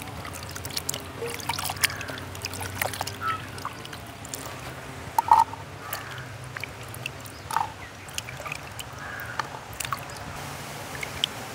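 Water splashing, trickling and dripping as leaves are washed by hand in a basin, with irregular small splashes and two louder plops about five and seven and a half seconds in.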